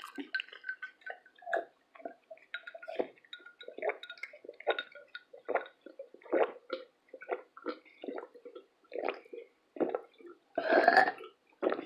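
Close-miked wet mouth sounds: a quick, irregular string of short swallows, sips and smacks, with a longer, louder one near the end.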